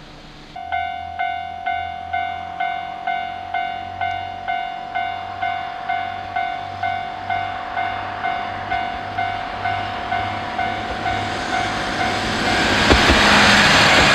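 A Japanese railway level-crossing alarm starts suddenly about half a second in, dinging about twice a second. Near the end a Noto Railway NT100 diesel railcar passes close over the crossing with a loud rush and clatter of wheels that takes over from the bell.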